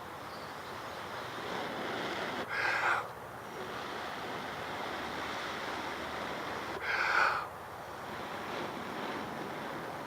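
A person blowing into a smouldering tinder nest to coax the ember into flame: two strong, short blows about four seconds apart over a steady rushing hiss of air.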